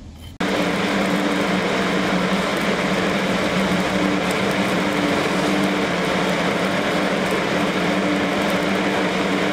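Stick-welding (SMAW) arc struck about half a second in on the root pass of a pipe joint, then crackling and frying steadily as the electrode burns, with a steady low hum underneath.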